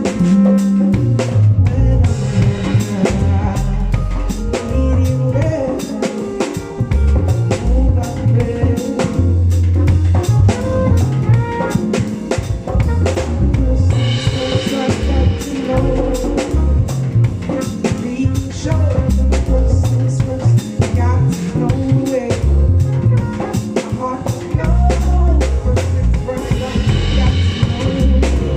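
Live band playing a song, with the drum kit to the fore: kick drum, snare and rimshots over held notes from the other instruments.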